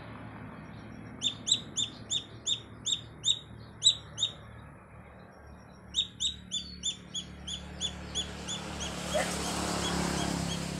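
Young chicken chick peeping loudly, separated from its mother hen: short high peeps in two rapid runs of about three a second, the second run fading near the end.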